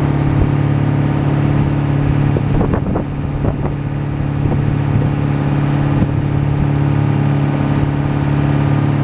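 A small ferry boat's engine running with a loud, steady drone, with a few brief higher sounds around three seconds in.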